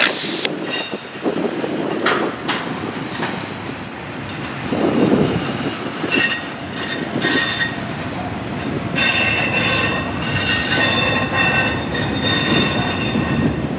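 Double-stack container cars rolling past on steel wheels, clattering and rumbling, with high-pitched wheel squeal at about six seconds in and again from about nine seconds until near the end.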